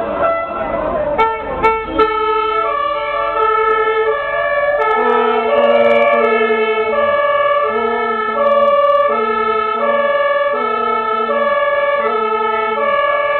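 Two-tone emergency-vehicle siren of the German kind, switching between a steady high note and a steady low note about every half second. It comes in about two and a half seconds in, after a few sharp clicks.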